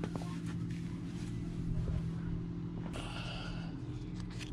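A plastic infill strip being handled and worked at an aluminium rail, giving a few light clicks and a short rustle about three seconds in, over a steady low hum.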